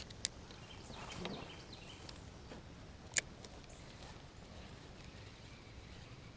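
Faint outdoor quiet broken by two sharp clicks about three seconds apart, with a soft brief sound about a second in.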